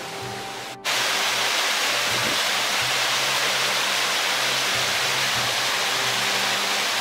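Rushing water of a fast river's white-water rapids: a loud, steady hiss that cuts in abruptly just under a second in, replacing quieter lakeside ambience. Soft background music with held low notes runs underneath.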